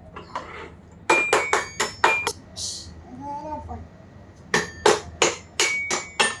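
Two runs of quick, sharp taps on something hard, each tap with a short ringing tone. Five come about a second in and six more near the end, with a brief hiss and a short voice-like sound between the runs.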